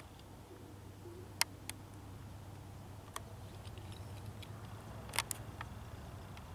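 Handling noise from a handheld camera: a handful of sharp, isolated clicks, with a double click a little past the middle, over a faint steady low rumble.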